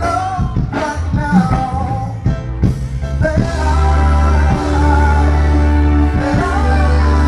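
Reggae music with a sung vocal line over a band. A heavy bass comes in and holds steady from about halfway through.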